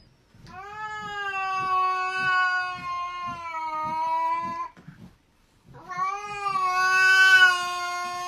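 A cat yowling at another cat, making two long drawn-out yowls of fairly steady pitch. The first lasts about four seconds, and the second starts about a second after it ends.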